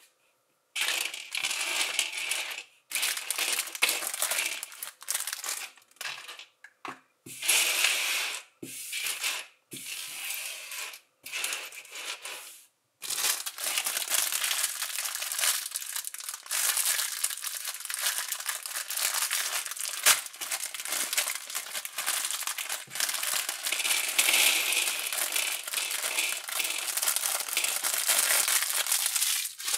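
A plastic bag of LEGO pieces being opened and handled: plastic crinkling and small plastic bricks clattering. It comes in short bouts with gaps at first, then runs on without a break from about halfway.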